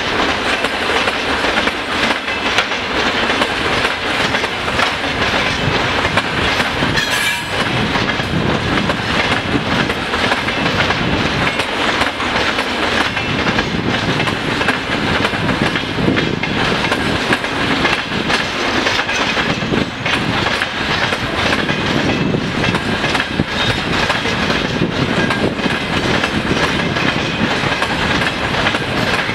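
Freight wagons (dump cars loaded with heaped material, gondolas, a boxcar and tank cars) rolling steadily past, their wheels clattering over the rail joints.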